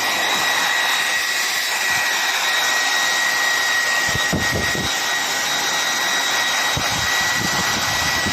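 Handheld hair dryer running steadily: a rush of blown air with a constant high whine from its fan motor, plus a few soft low knocks about halfway through.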